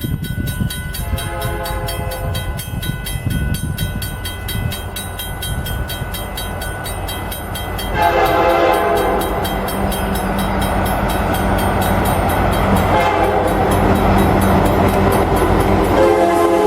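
Approaching train sounding its multi-tone air horn over the rumble of the locomotive, with the grade-crossing signal bells ringing. The horn comes in much louder about eight seconds in and keeps blowing.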